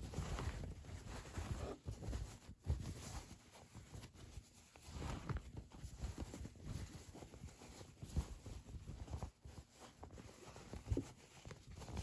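Cotton fabric rustling and brushing as hands bunch and turn it, with a few short knocks against the table.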